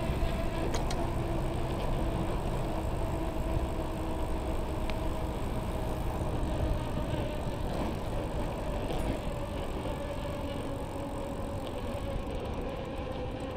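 Bicycle rolling at steady speed on a paved path: wind rumbling on the microphone and tyre noise, with a faint steady hum.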